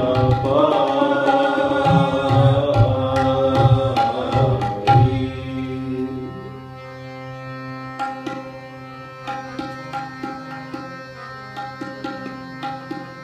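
Two harmoniums and a tabla playing kirtan accompaniment. For about the first five seconds a loud moving melody sounds over the tabla strokes; then the music drops to a softer held harmonium chord while the tabla strokes go on more lightly.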